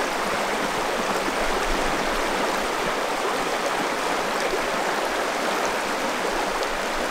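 Shallow river water running steadily over a rocky riffle: an even, unbroken sound of flowing water.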